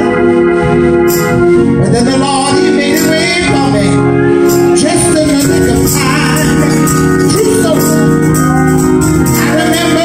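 Electronic organ playing sustained, slowly changing chords.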